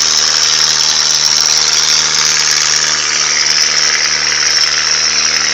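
An engine running steadily at an unchanging speed, with a strong high hiss over it.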